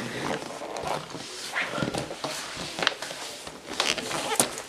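A person crawling in under a kitchen table: scuffling and rustling, broken by several sharp knocks and bumps, the loudest near the end.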